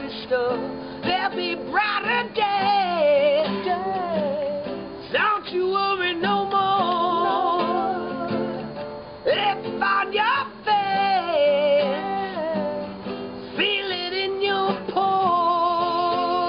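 A song with strummed acoustic guitar under a singing voice. The voice glides between notes and wavers with vibrato on its held notes.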